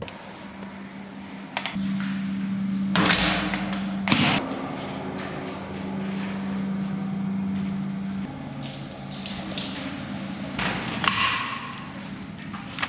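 Shower water spraying in a steady hiss, with a steady hum for several seconds and a few sharp knocks.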